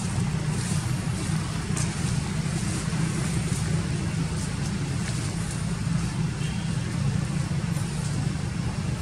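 Steady low rumble of a running motor vehicle, with an even hiss above it.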